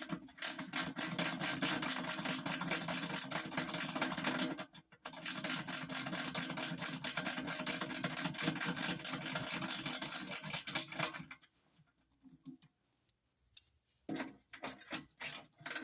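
Ratchet wrench clicking rapidly as a nut is worked off, in two long runs with a short break about four and a half seconds in, stopping about eleven seconds in, then a few scattered clicks and a short run near the end.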